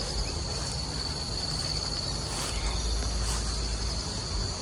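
Insects trilling in one steady, high-pitched tone with a slight pulse, over a low rumble.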